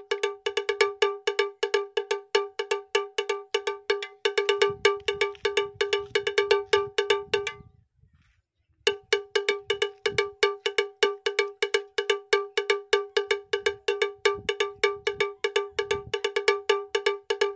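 A single bright, bell-like metallic tone struck over and over at an even, quick pace, about five or six hits a second, each hit the same pitch. It breaks off for about a second near the middle, then resumes at the same pace. Faint low thumps sit underneath in places.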